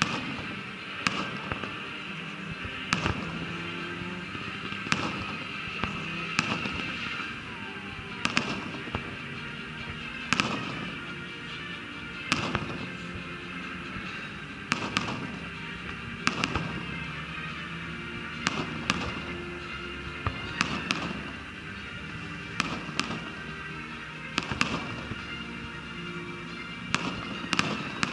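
Fireworks display: aerial shells bursting with sharp bangs at irregular intervals, about one every second or two, some in quick pairs.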